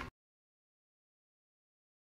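Complete silence: the sound cuts out entirely at an edit, after a brief click right at the start.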